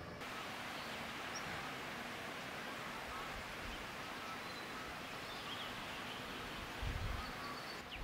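Outdoor countryside ambience: a steady soft hiss with a few faint, brief bird chirps, and a short low rumble near the end.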